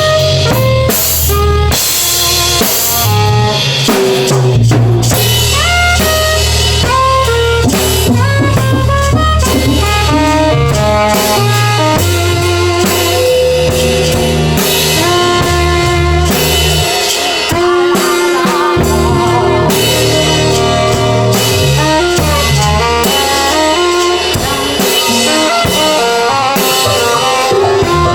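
A live band playing improvised music: drum kit with bass drum and snare hits under a steady bass line, with quick runs of melodic notes on top.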